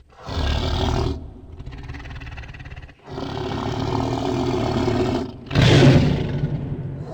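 Tiger roaring and growling: three loud calls, the last and loudest about two-thirds of the way through, with a quieter rumbling growl between the first two.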